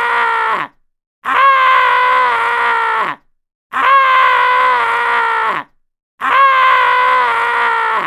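Man screaming a long 'aah', the same scream repeating about every two and a half seconds with short silences between; each scream lasts a little under two seconds and drops in pitch at the end.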